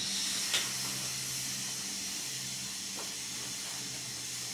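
A long, steady hiss of breath blown out by the patient during treatment breathing, with two faint clicks, one about half a second in and one about three seconds in.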